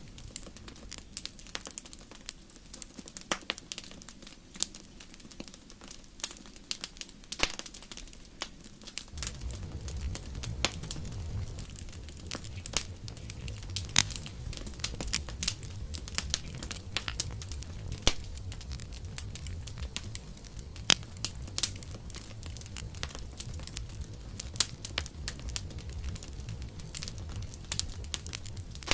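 Campfire crackling, with frequent sharp pops and snaps. A low rumble joins the crackle about nine seconds in and carries on.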